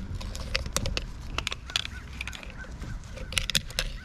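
Longacre oil filter cutter worked by hand, turned with channel-lock pliers as its cutter wheel runs around the steel filter can: bunches of sharp metal clicks and scrapes with pauses between them, over a low wind rumble on the microphone.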